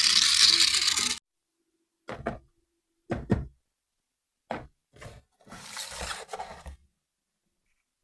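A loud rattling, whirring sound cuts off abruptly about a second in. It is followed by a few short knocks and a longer scuffle of a toy being handled.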